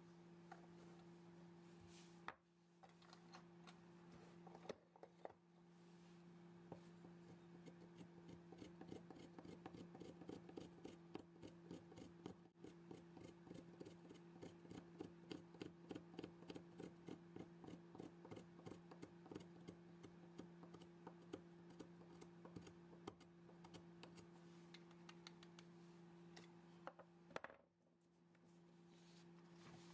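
Faint, rapid scraping of a small knife shaving a soft white block, about three short strokes a second, starting about seven seconds in and stopping near twenty-five seconds. A few single knocks from handling come near the start and near the end, over a steady low hum.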